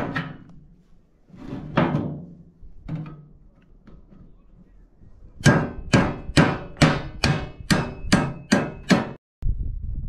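A curved machete blade chopping into the lid of a metal oil tin, sharp metallic strikes to cut it open: a couple early on, then a quick run of about nine at roughly two to three a second. The chopping stops abruptly near the end, giving way to a low rumble of wind on the microphone.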